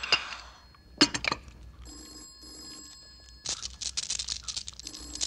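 Telephone bell ringing in repeated double rings, left unanswered. A sharp clink about a second in, and a stretch of scraping noise near the end.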